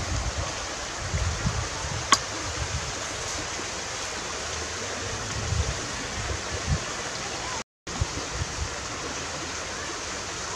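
Steady rush of a flowing river, with wind buffeting the microphone now and then and one sharp click about two seconds in.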